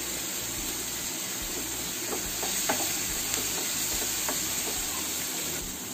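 Chopped onion and tomato sizzling in oil in a non-stick frying pan as a wooden spatula stirs them, with a few light scrapes of the spatula against the pan.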